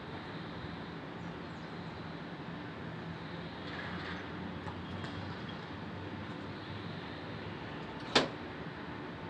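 Steady wash of distant city noise heard from high up, with one sharp knock about eight seconds in.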